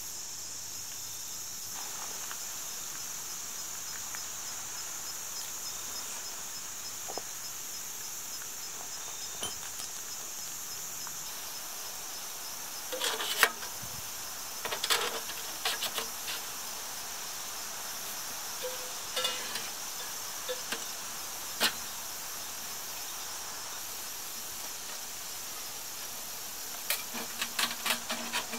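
A steady high-pitched insect chorus, with scattered metallic clinks and knocks from about halfway as stove pipe sections are handled and fitted together, and a quick run of clicks near the end.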